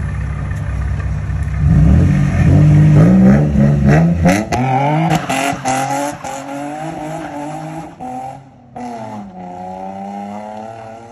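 Infiniti G35's V6 through a newly installed Spec D cat-back exhaust, running steadily, then revving hard about two seconds in with the pitch climbing as the car accelerates. After a few seconds it gets quieter and settles to a lower, steadier note.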